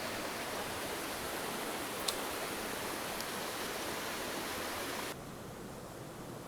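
Small mountain creek running, a steady rushing hiss of water, with one faint click about two seconds in. About five seconds in it suddenly turns quieter and duller.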